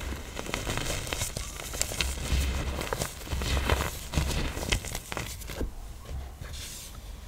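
Hard-pressed blocks of black iron oxide powder being crushed: dry, crunchy crackling and crumbling, with many small sharp clicks as the blocks break apart.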